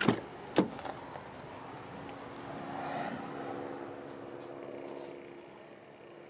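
Two sharp clicks, about half a second apart, from the rear side door handle and latch of a Toyota Hilux Surf as the door is opened, over a steady low hum.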